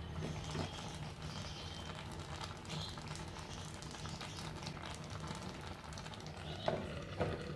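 Wooden spatula stirring chopped fruit in a black clay pot, with soft scraping and small clicks over a steady low hum, then the clay lid set onto the pot with two knocks near the end.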